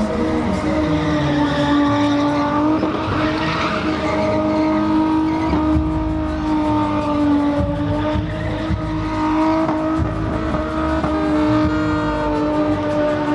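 A car engine held at high revs during a burnout, its note staying nearly steady throughout, over the noise of spinning tyres.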